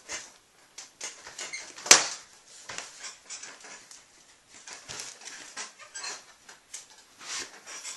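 Phillips screwdriver being twisted and forced through a foam Morey bodyboard, making a run of short, irregular scratchy sounds, with one sharp click about two seconds in.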